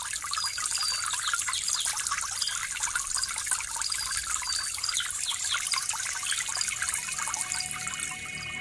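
Forest ambience: a stream trickling, with many short, high chirps of small birds over it.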